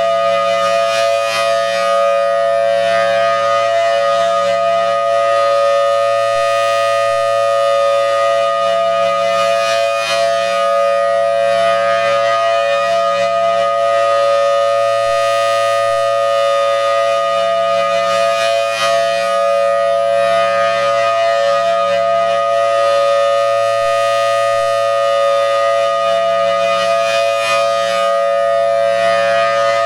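Federal Signal Thunderbolt 1000T siren sounding its full alert: a loud, steady two-note tone that swells and fades about every eight seconds as the rotating horn sweeps past.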